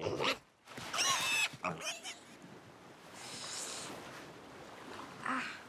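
Cartoon piglet squealing: a few short, high, wavering cries in the first two seconds. A soft hiss follows about three seconds in, and a brief lower vocal sound comes near the end.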